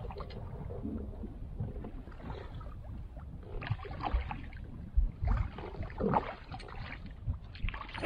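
Wind and water noise around a small kayak, with intermittent whirring and scraping as a fishing reel is cranked to bring in a hooked trout. At the very end comes a loud splash as the trout thrashes at the surface.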